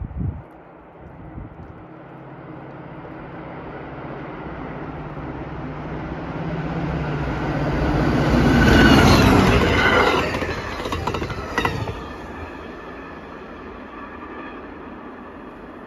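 CTrail passenger train led by a diesel locomotive approaching and passing at speed: the engine's rumble grows steadily louder to its peak about nine seconds in as the locomotive goes by, then the coaches' wheels clatter over the rail joints and the sound settles to a lower steady rush.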